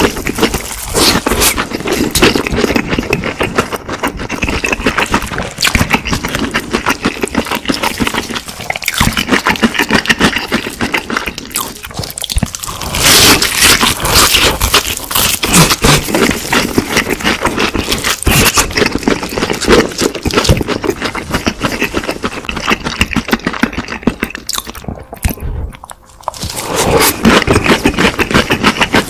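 Close-miked crunching and chewing of crispy fried chicken: loud crackly bites of the battered crust and wet chewing, with a short lull near the end.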